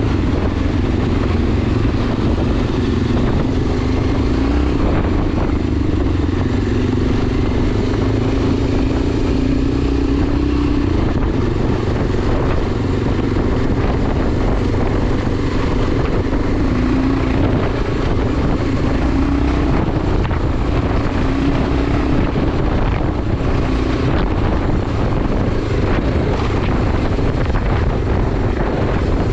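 Enduro motorcycle engine running under way, its note rising and falling a little as the throttle changes, over a heavy constant low rumble.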